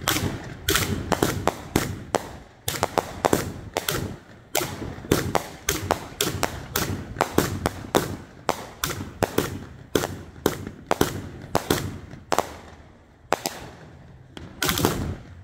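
Raccoon Nishiki Mine 500-gram firework cake firing a rapid string of shots: sharp bangs and pops of the mines and breaks, several a second, thinning out near the end.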